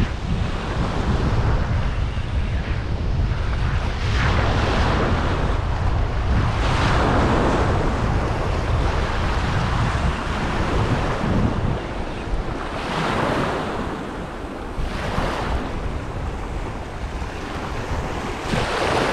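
Small waves washing and breaking at the edge of a beach in repeated surges every couple of seconds. Wind rumbles on the microphone, heaviest through the first half and easing after that.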